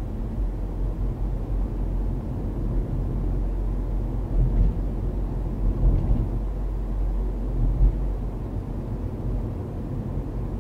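A car driving, heard from a dash cam inside the cabin: a steady low rumble of tyres and engine, with a few short louder bumps around the middle.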